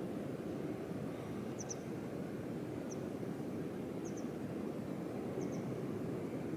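Steady rushing of a river or mountain stream flowing, with a small bird giving short high double chirps about once a second.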